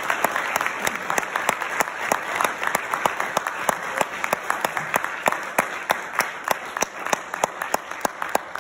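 Audience applauding: a dense, steady clatter of many hands clapping, beginning to thin out near the end.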